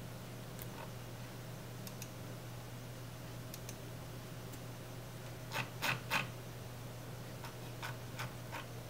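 Scattered sharp clicks from a computer mouse and keyboard being used, with a quick run of three louder clicks a little past halfway, over a steady low hum.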